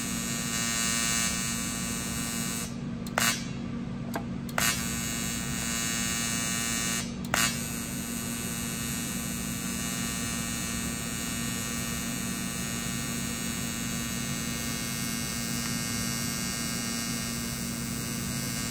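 AC TIG welding arc on thin, very hot aluminum from a Titanium TIG 200 welder, buzzing steadily. The arc drops out three times in the first seven or so seconds, and each time it comes back with a sharp snap. The welder is pulsing the heat with the foot pedal, barely keeping an arc going.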